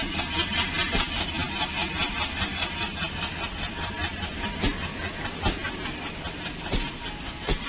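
Diesel locomotive engine running with a steady pulsing beat, with a few sharp clunks scattered through it.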